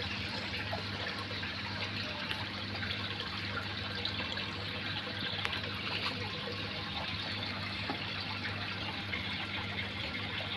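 Water trickling steadily through a hydroponic growing channel, with a low steady hum underneath.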